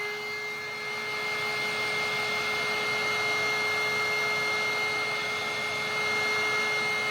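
Heat gun running steadily: a steady motor hum and whine over the rush of blown air.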